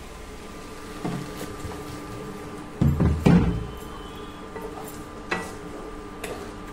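Hands kneading soft rice-flour dough in a stainless steel bowl: the dough is pressed and knocked against the bowl, with a few heavy thuds about three seconds in, over a faint steady hum.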